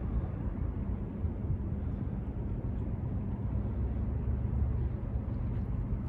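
Steady low mechanical rumble with a faint droning hum, like distant engines or machinery.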